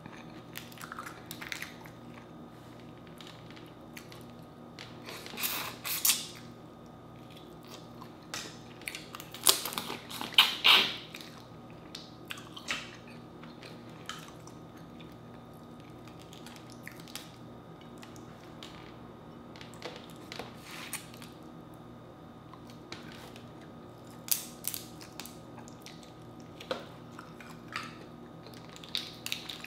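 Boiled crawfish being peeled by hand and eaten: shells cracking and snapping in scattered crackles, with chewing. The loudest clusters come about five seconds in and around ten seconds in. A faint steady hum lies underneath.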